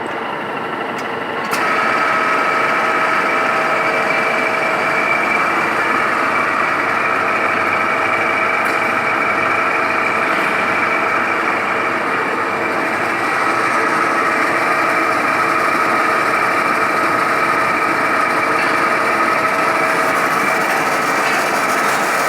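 Milling machine running steadily, with a constant whine over a rushing noise, milling flats in metal for grease nipples. About a second and a half in there is a click and it gets louder.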